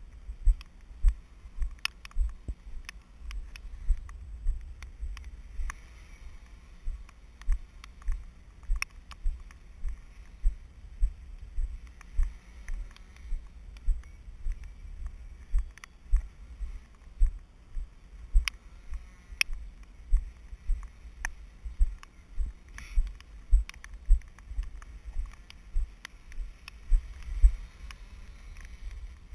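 Dull knocks against the camera, about two a second all through, each with a faint sharp tick: rain-soaked handling or drops striking the camera's waterproof housing. No motor sound of the distant quadcopter is heard above them.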